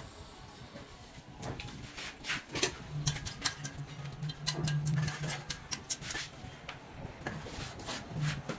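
Hand plastering with sand-and-cement mortar: a trowel clicks and scrapes irregularly against mortar and brick, starting after the first second and a half. A low hum runs underneath and is loudest in the middle.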